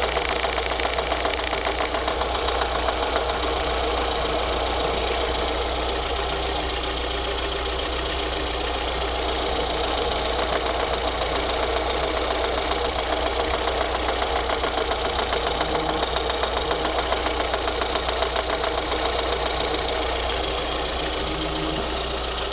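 VAZ 21093 four-cylinder petrol engine running steadily at idle, with a rapid, even knocking from the top of the engine: an undiagnosed fault that the owner hears clearly under the bonnet.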